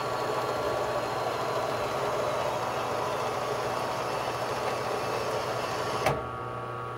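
Horizontal metal-cutting bandsaw running steadily as its blade cuts through a 7000-series aluminium billet held in a threaded fixture. About six seconds in there is a short knock and the sound drops to a quieter hum.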